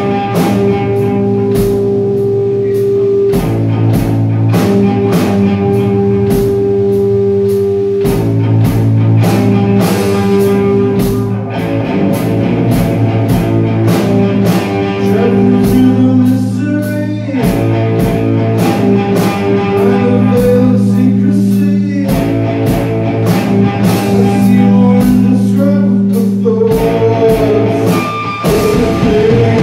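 Live heavy rock played by a guitar-and-drums duo. An electric guitar holds low chords, each for a few seconds, over a drum kit with steady cymbal hits.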